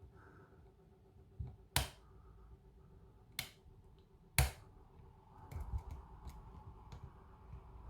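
Small metal clicks and scratching from a short hook pick and two tension wrenches working the pins of a lock cylinder caught in a false set. There are three sharp clicks a second or so apart, then soft scratching in the second half.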